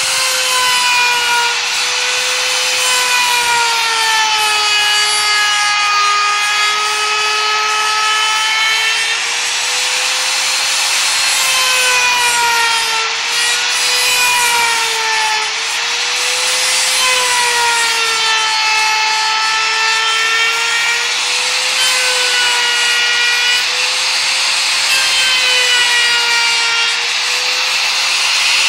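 Compact trim router running at high speed and cutting a curved edge in wood: a steady high motor whine over the hiss of the bit cutting. The pitch sags a little and recovers again and again as the cut loads the motor.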